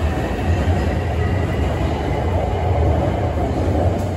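Beijing Subway Line 8 train running along the platform behind the glass screen doors: a steady, loud rumble of wheels and running gear with a faint high whine over it.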